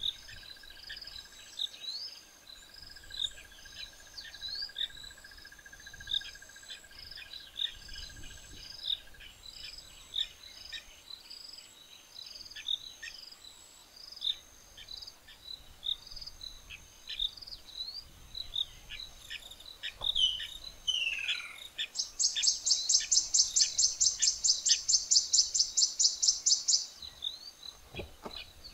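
Natural bush ambience of insects and birds: repeated high chirps and ticks, with a steady thin insect drone for the first third. A falling whistled call comes about two-thirds through, then a loud, fast pulsing high trill of about six pulses a second runs for some five seconds near the end.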